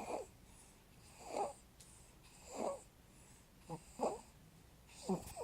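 Three-month-old baby's noisy breathing with stridor: about five breaths, each a short pitched squeak that slides in pitch, roughly a second and a quarter apart. The sound is the sign of a narrowed upper airway.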